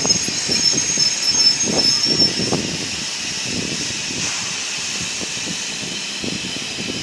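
BR Standard Class 4 2-6-0 steam locomotive 76079 moving slowly past, with a steady high hiss of escaping steam. Irregular knocks sound for the first few seconds, then the sound settles to a steadier, slightly quieter noise.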